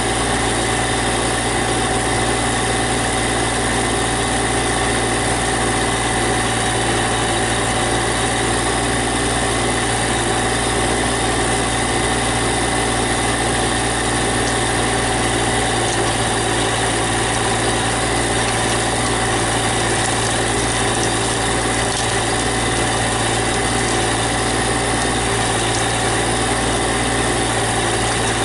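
Engine of a GC1710 compact tractor-backhoe running at a steady speed.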